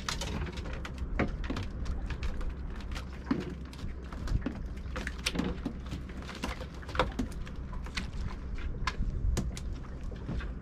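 Irregular clicks and knocks from unhooking mackerel off a string of feathers and handling the rod and rig in a small fibreglass boat, over a steady low rumble of wind and water.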